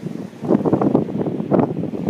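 Wind buffeting the microphone in rough gusts, picking up strongly about half a second in.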